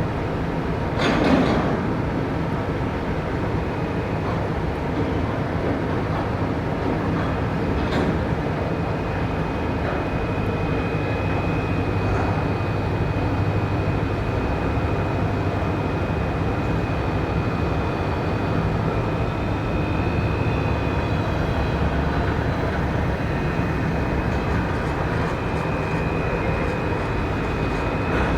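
Steady heavy-machinery rumble during container loading at a port quay. Two sharp metallic bangs come about a second in and around eight seconds in, and a thin, steady high whine runs from about nine seconds on.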